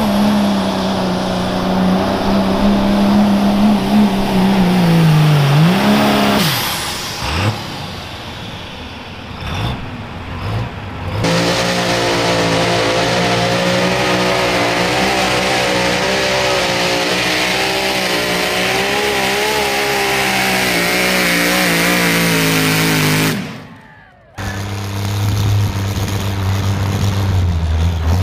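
Pulling vehicles' engines running hard in a string of cuts. First a pickup's engine runs at full power, its pitch sagging about five seconds in, followed by a stretch of mixed noise. Then a modified mini-rod garden tractor's engine runs steadily at high revs, and after a short break near the end a diesel pickup rumbles at a lower pitch.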